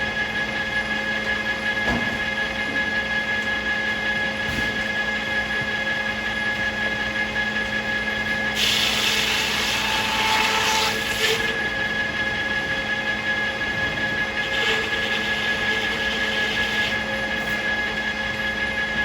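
Circular sawmill running steadily with a constant machine hum. Two spells of louder hissing come in, the first about nine seconds in for about three seconds, the second weaker one about fifteen seconds in.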